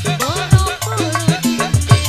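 Live dangdut band playing: a steady bouncing drum and bass beat with keyboard and electric guitar melody over it.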